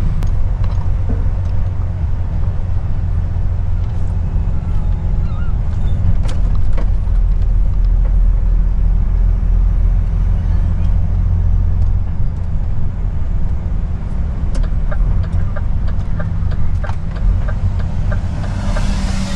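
Lorry's diesel engine running steadily, heard from inside the cab while driving. In the second half there is a run of evenly spaced ticks, and a short hiss comes just before the end.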